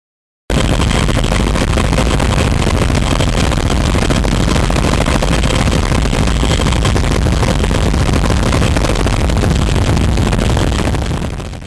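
Loud steady din inside a CH-46E Sea Knight tandem-rotor helicopter in flight: turbine engines and rotors, with a faint steady high whine. It cuts in suddenly about half a second in and fades out at the end.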